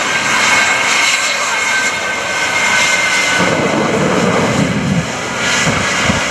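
Jet truck's three Pratt & Whitney turbojet engines running: a loud, steady roar with a high whine held at a constant pitch, and a rougher low rumble that swells in the middle.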